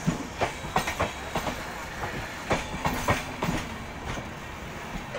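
Passenger train coaches rolling past close by, their wheels clacking over the rail joints in an uneven run of sharp clicks, about two or three a second, over a steady rumble.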